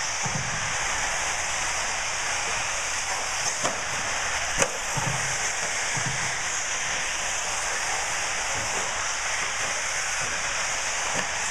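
1/8-scale RC off-road buggies racing on a dirt track: a steady whirring hiss of motors and tyres, broken by a few sharp knocks, the loudest about halfway through.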